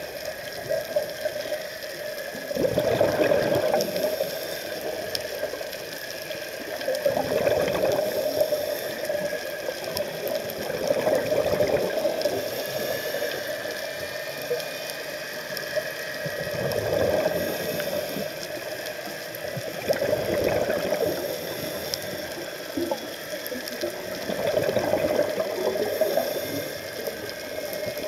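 Scuba diver's exhaled bubbles from the regulator heard underwater: a bubbling rush about every four seconds, over a steady hiss.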